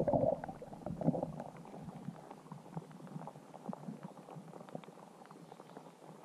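Muffled underwater sound from a camera submerged in lake water, with many faint scattered ticks and crackles. It is louder for the first second or so, then fades quieter.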